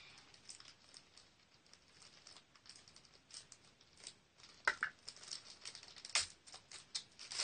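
Scissors snipping and hands working at drumstick packaging: faint scattered clicks and rustling, with two sharper snaps, one about two-thirds of the way through and another about a second and a half later.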